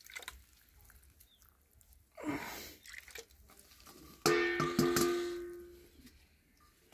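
A small metal hand bell struck a few times, its ring fading away over about a second and a half. About two seconds in there is a brief rustling scrape.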